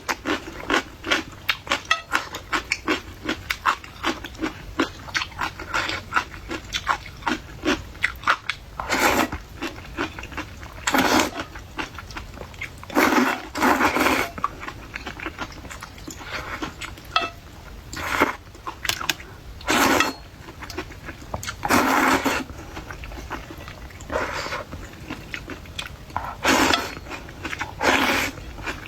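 Close-miked eating sounds of crunchy pickled sour-spicy radish: rapid crisp crunches, several a second, for about the first eight seconds. After that come louder, longer mouth noises every couple of seconds.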